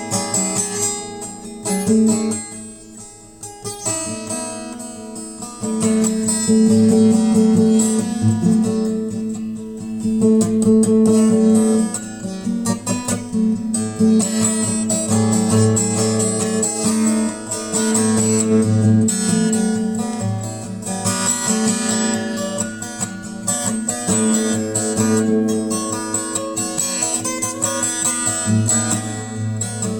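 Background music: acoustic guitar strumming and picking, with sustained tones throughout.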